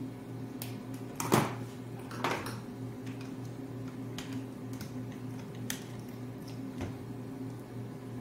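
Plastic and metal clicks and clatter from handling a contactor and its control wires on a wiring board, a handful of separate knocks with the loudest about a second in. A steady low hum runs underneath.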